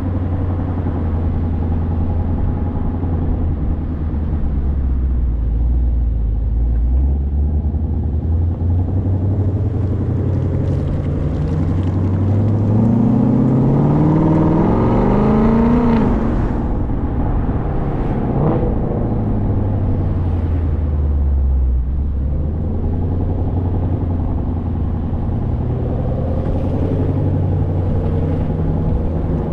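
Car engine running at a steady low hum, then revving up under acceleration. Its note climbs for several seconds to about the middle, breaks off, and drops back down before settling to a steady drone again.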